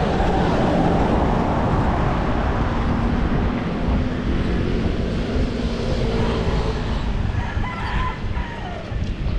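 Steady wind rush and road rumble on a handlebar-mounted camera while a bicycle is ridden along a road, with a rooster crowing near the end.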